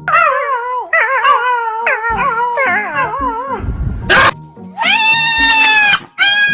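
Dog howling in a wavering, warbling pitch, broken by a short harsh bark about four seconds in, then two long held howls near the end.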